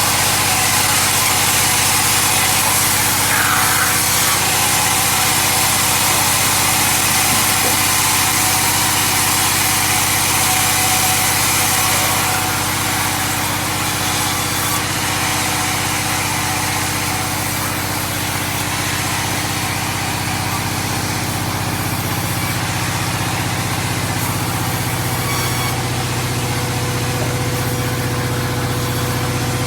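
Engine-driven saw cutting sengon (albizia) timber: the engine runs steadily under load with a high cutting hiss, which eases slightly about twelve seconds in.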